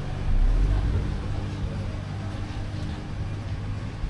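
Tourist road train's engine running steadily as it rolls along a street, with a car passing close alongside as a brief louder swell about half a second in.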